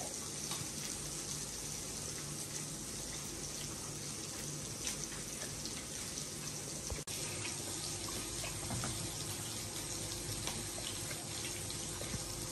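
Meat sizzling on a charcoal-heated grill plate: a steady hiss with small crackles, broken by a brief drop-out about seven seconds in.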